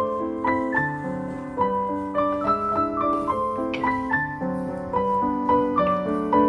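Background piano music: a light melody of single notes, several to the second, over steady chords.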